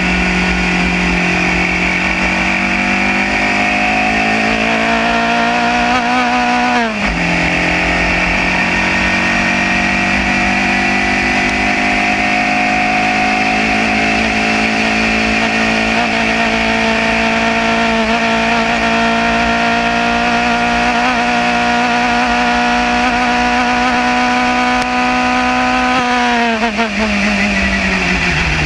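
Formula Junior single-seater race car engine heard from the onboard camera at full throttle. The pitch climbs, dips sharply with an upshift about seven seconds in, then climbs again and holds high and steady down the straight. Near the end it falls away in steps as the car slows and changes down for a corner.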